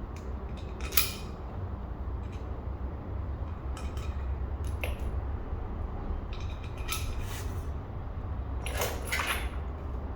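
Small metal parts clicking and clinking as the drive-shaft couplers and their bolts and nuts are handled, with a sharp click about a second in and more clinks near the middle and the end, over a steady low hum.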